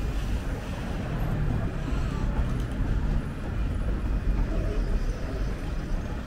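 City street traffic: a steady low rumble of a motor vehicle passing close, with a low engine hum for a couple of seconds about a second in.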